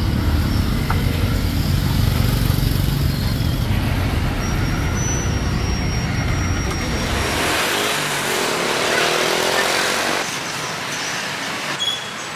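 Battered bananas deep-frying in a wok of hot oil, sizzling, over the low rumble of passing street traffic. The sizzle swells about seven seconds in, and everything drops quieter about ten seconds in.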